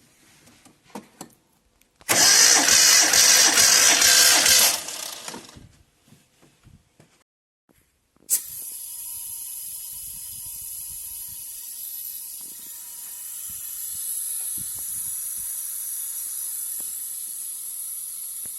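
Hyundai Verna engine being turned over, loud for about three seconds and then dying away. A few seconds later there is a click, and a steady hiss with a faint high tone follows.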